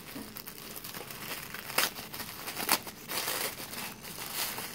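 Flower-patterned wrapping paper crinkling and rustling as it is unwrapped by hand, with a few sharper crackles about two and three seconds in.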